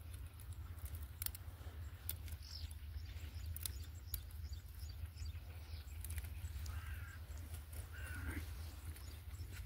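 Light clicks and rustles from hands working a tangled nylon fishing net, over a steady low outdoor rumble, with two short bird chirps near the end.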